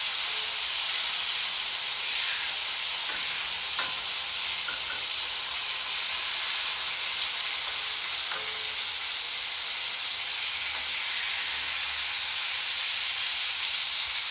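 Whole tomatoes frying in hot mustard oil in a kadhai, a steady sizzle as they are turned over with a spatula. A single sharp click about four seconds in, with a softer knock around eight seconds.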